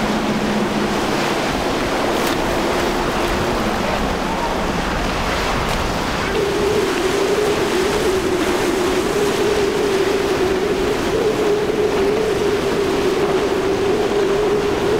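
Outboard-powered boats running at speed through choppy surf, with waves and wind on the microphone throughout. Twin Mercury 200 hp outboards on a Boston Whaler fade away in the first few seconds. About six seconds in, a center console's twin Suzuki 200 hp outboards come in with a steady, slightly wavering drone.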